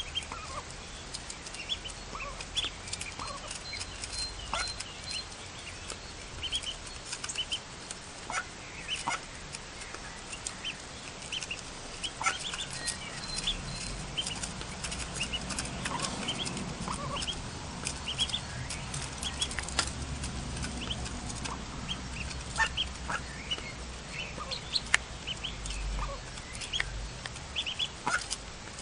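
Ducklings peeping in short high notes as they feed, with frequent small clicks of their bills pecking at crumbled feed on a plate.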